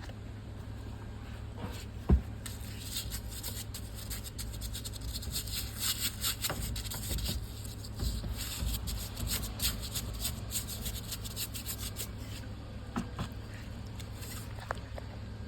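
Rubbing and scraping handling noises, full of fine crackles through the middle of the stretch, with one sharp knock about two seconds in, over a steady low hum.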